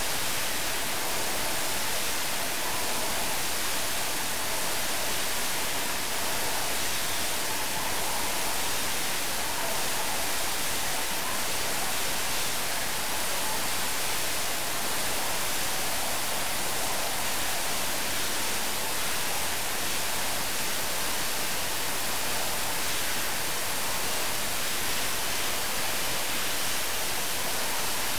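A steady, even hiss with no separate clinks or knocks.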